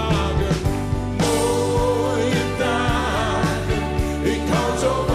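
Live pop band playing with singing over it and a steady beat.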